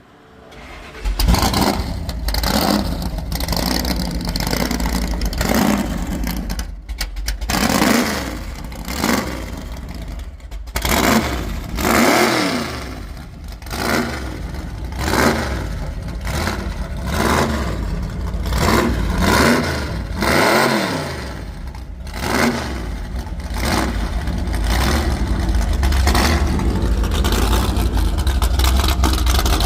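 Hot rod engine firing up about a second in, loud through open exhaust headers. It is then revved again and again in sharp rising-and-falling blips, and settles into a steady, loud, fast run near the end.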